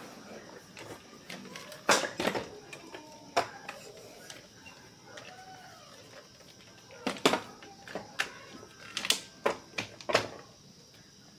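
Scattered sharp clicks and knocks of small hard objects being handled: a few a couple of seconds in, then a quicker run of them in the second half.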